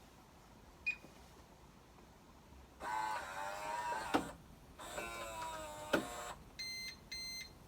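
Electronic deadbolt setting its locking direction: its motor whirs twice, driving the bolt out and back, each run ending in a sharp click, then the lock gives two short beeps.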